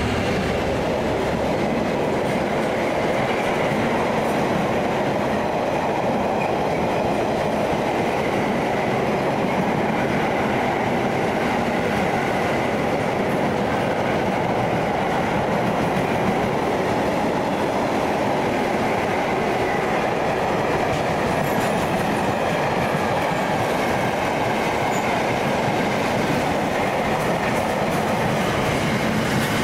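Car-carrier wagons of a loaded freight train rolling past close by: a steady rumble of wheels on the rails.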